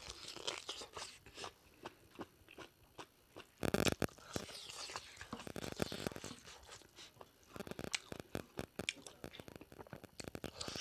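A person eating pork leg curry close to the microphone: chewing and biting with wet mouth clicks and crunches. There are louder bursts of crunching about four seconds in and again near eight seconds.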